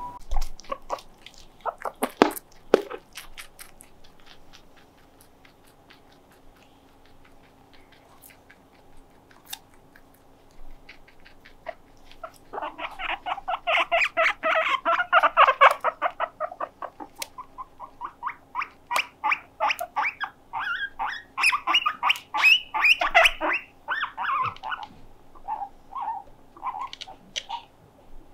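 Guinea pigs squeaking in two long bouts of rapid, repeated squeaky calls, a few sharp clicks first.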